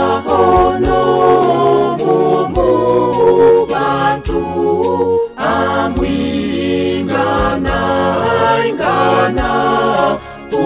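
Church choir singing a hymn in Runyoro-Rutooro in several voice parts, in phrases a second or two long with short breaks between them.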